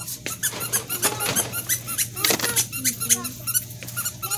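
Shopping cart wheel squeaking in a quick, even rhythm as the cart is pushed along, over a steady low hum.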